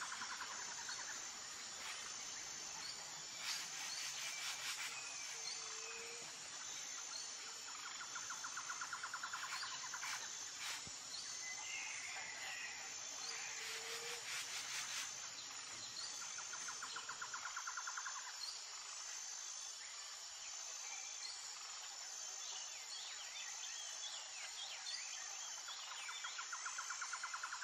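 Nature ambience of insects and birds: a high insect chirping in a steady pulse, a lower pulsed trill that comes back every eight or nine seconds, and a few short bird chirps.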